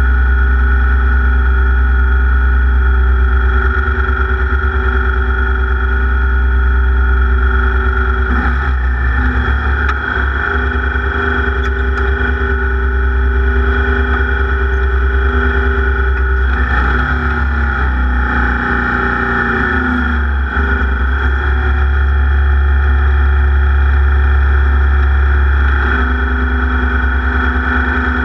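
Racing engine held at high revs during a race lap, its note dipping briefly and climbing back about three times, once about a third of the way in and twice past the middle.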